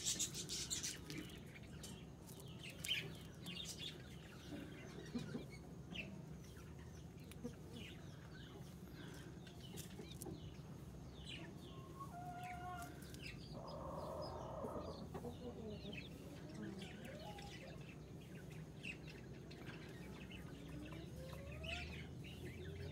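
Faint, scattered chirps and short rising calls of young paper-white chickens, with soft clicks throughout.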